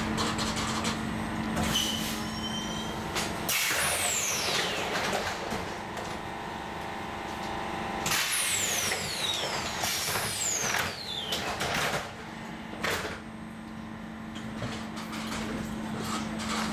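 Tram: a steady electrical hum with several loud hissing bursts of released air, the first about three and a half seconds in, some carrying a falling whistle.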